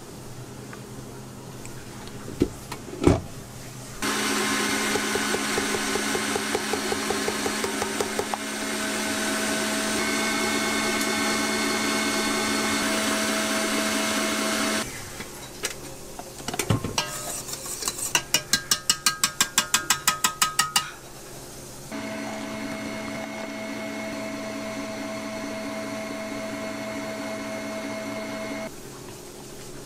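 Stand mixer motor running steadily as its wire whisk whips cream in a stainless steel bowl, in two stretches of several seconds. Between them comes a short run of rapid, evenly spaced ticks, and a couple of sharp knocks come before the mixer starts.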